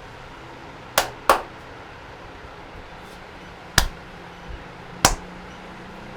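Sharp hand slaps of a massage: a quick pair about a second in, then two single slaps, over a steady background hum.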